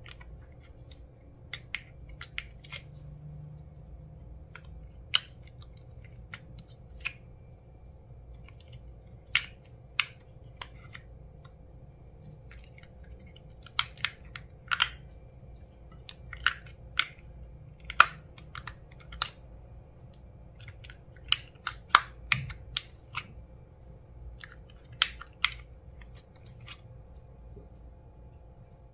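Slime being worked and squished by hand, giving irregular sharp clicks and pops, roughly one a second and clustered in places, over a faint low hum.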